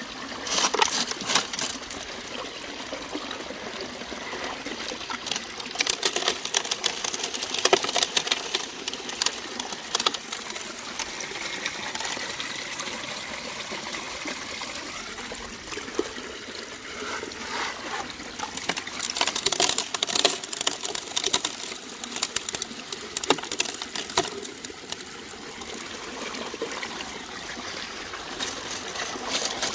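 Water running through a King Mini Max sluice set in a river, with gravel and small stones clicking and rattling at intervals as material is washed through.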